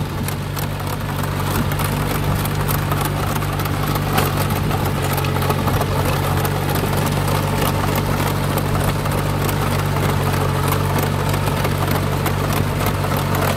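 Compact tractor's engine running steadily under load as it drives a rear-mounted rotary tiller through the soil, an even hum with light scattered ticks over it.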